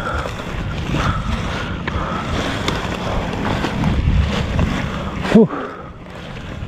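Wind buffeting an action-camera microphone, with rustling and crunching of dry grass as a mountain bike is pushed up a steep grassy slope. A brief vocal sound rises in pitch about five and a half seconds in.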